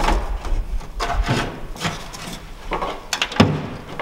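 Electrical wiring and plug connectors handled and pushed through a hole in a boat's hull: a series of rubs, scrapes and knocks, the sharpest about three and a half seconds in.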